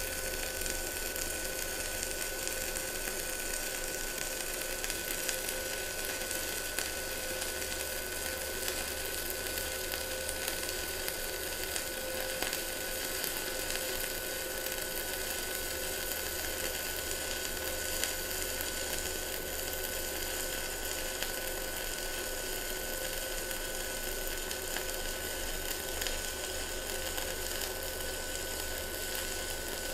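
Stick-welding arc from a NANYA mini inverter welder, burning a 2.5 mm electrode at a little over 160 amps in one continuous bead: a steady sizzling crackle with small pops scattered through it. A steady high tone runs alongside.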